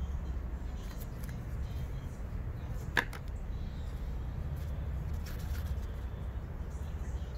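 Steady low background rumble with one sharp click about three seconds in, as a painting stick or paint cup is handled on the table.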